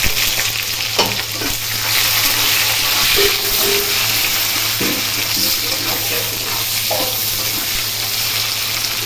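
Chopped onions frying in hot oil in a kadai, a loud steady sizzle, stirred with a spatula that knocks against the pan now and then.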